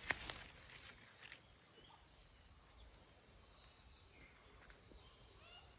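Faint outdoor quiet: a steady high insect drone with a few faint bird chirps, after two sharp clicks just after the start.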